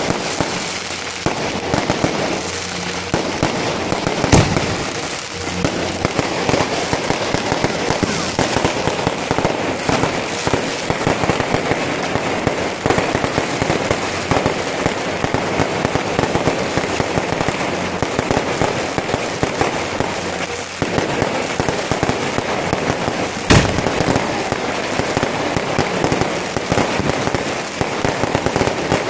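Fireworks going off without a break: a dense, continuous crackle of many small bursts, with two louder single booms standing out, one about four seconds in and another late on.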